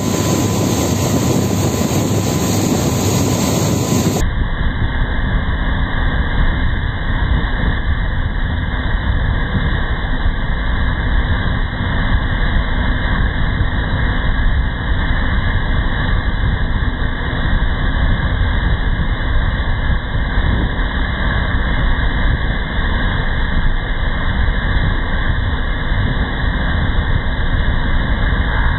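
Motorboat under way: a steady motor drone mixed with the rush of wind and water, low and unbroken.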